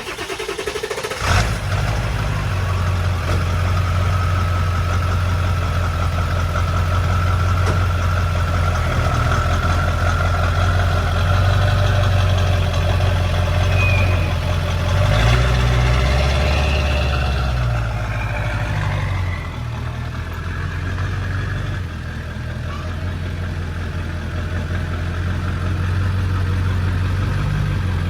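Ford 7.3 Powerstroke turbo-diesel V8 of a 1997 pickup starting up about a second in, then running steadily with a deep rumble.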